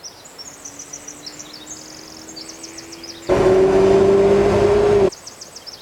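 Mercedes-Benz CLA250's 2.0-litre turbo four-cylinder through an HG Motorsports stainless performance exhaust: a loud, steady high-rpm rev held for about two seconds, starting about three seconds in and cutting off abruptly. Before it, birds chirp over a faint steady hum.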